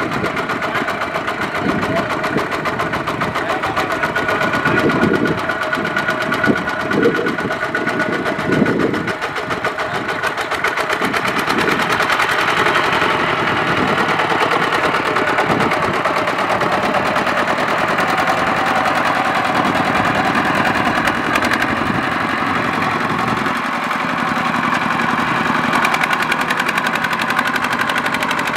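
Kubota single-cylinder diesel engine of a two-wheel walking tractor running under load, a fast, steady knocking beat, while it pulls a trailer loaded with rice sacks.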